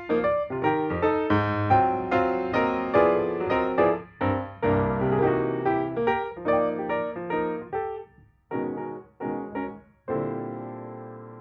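Background music on piano: a melody of separate struck notes that thins to a few spaced notes and ends on a chord that rings and fades, about ten seconds in.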